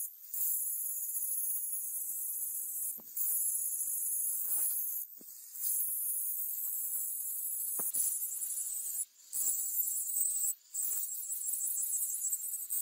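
Angle grinder's abrasive disc grinding the edge of a steel axe head, heard as a steady high-pitched hiss that cuts out briefly several times.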